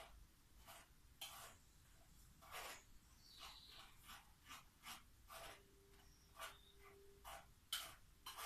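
Spoon scraping and pressing ground flaxseed pulp in a small mesh tea strainer over a cup, straining flaxseed water. Faint, short scraping strokes at an uneven pace, about two a second.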